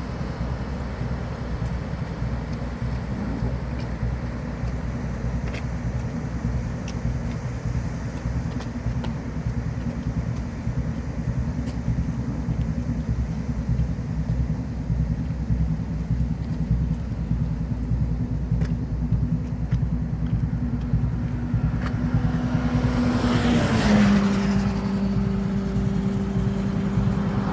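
A steady low rumble, then a road vehicle passing close near the end: its noise swells and its hum drops in pitch as it goes by.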